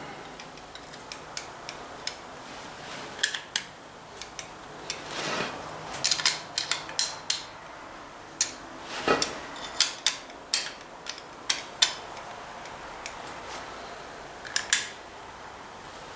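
Light metal clinks and taps at an uneven pace, from hands and tools working a rocker-arm oil line tube into its tight fitting. The clinks come thickest in the middle, with a soft scrape or two among them.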